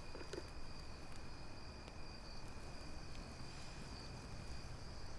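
Crickets chirping in a steady, unbroken trill, over a faint low rumble.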